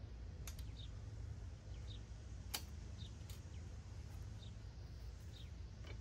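A few sharp metallic clicks and ticks from the rear three-point hitch of a compact tractor being handled. The loudest click comes about two and a half seconds in. Under them runs a steady low hum, with faint short high chirps about once a second.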